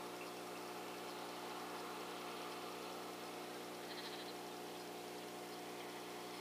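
Steady electronic hum and hiss from a digital riflescope's own built-in microphone and electronics, made of several fixed tones. About four seconds in, a brief high pulsed chirp sounds faintly.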